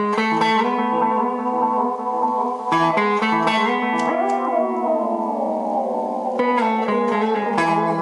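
Clean electric guitar chords from a Stratocaster through a Peavey Classic 30 tube amp, fed through a Neptune delay pedal that repeats each chord as a train of echoes with high feedback. About halfway through, the repeats bend downward in pitch as the pedal's footswitch is pressed. Chords are struck four times: at the start, a bit under three seconds in, and twice near the end.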